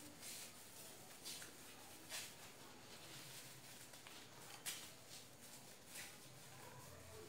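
Faint crinkling of a thin plastic ice-pop bag being twisted and knotted shut by hand: a handful of brief, crisp rustles, the clearest about halfway through.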